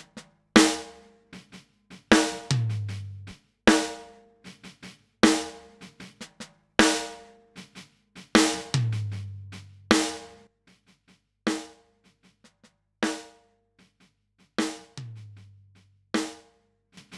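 Slow drum-kit loop played through a Great River PWM-501 compressor: a snare hit about every second and a half, a kick drum under some of them, and light hi-hat ticks in between. About ten seconds in, the hits turn quieter and shorter while the compressor's knobs are being turned.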